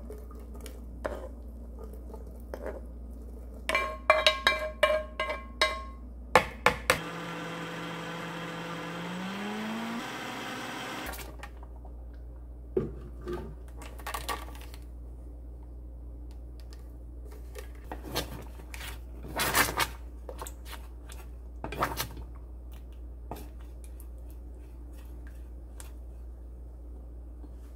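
Ringing clinks and knocks of a pan against a blender jar as corn is scraped in, then a blender motor running for about four seconds, its whine rising in pitch as it spins up. After it come scattered knocks and scrapes of a saucepan and spatula as the blended soup is poured and stirred.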